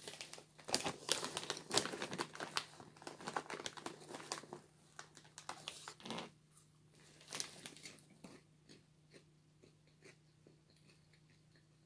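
Crinkly popcorn snack bag rustling and crackling as it is handled and a hand rummages inside it, dense for the first few seconds, then thinning to scattered crackles and a few faint ticks.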